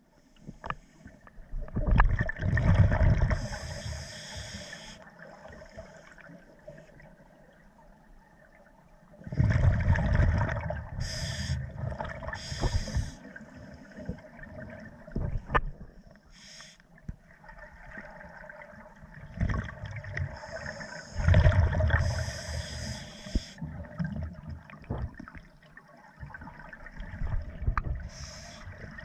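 Scuba diver breathing through a regulator underwater: three loud bursts of gurgling exhaled bubbles with a high hiss, about ten seconds apart, and quieter bubbling and clicks between them.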